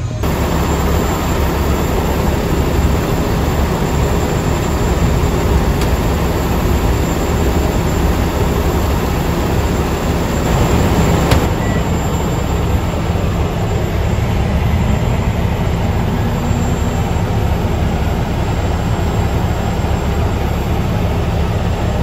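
Hamilton Beach countertop microwave running off the truck's newly installed inverter: a steady hum with an even fan whoosh over it.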